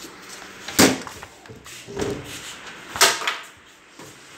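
Two sharp knocks about two seconds apart, the first a little under a second in and the second about three seconds in.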